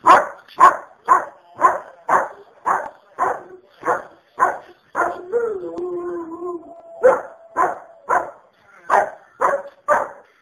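A dog barks steadily, about twice a second. About five seconds in the barking stops for a short, held howl from the Rottweiler, rising in pitch and then steady, before the barking resumes.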